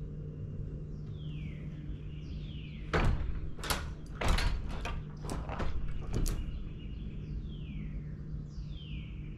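Panels of a six-panel Doorwin bi-fold glass door being swung shut, giving a run of knocks and clicks over a few seconds as the panels meet and latch. A few falling high whistles sound now and then over a steady low hum.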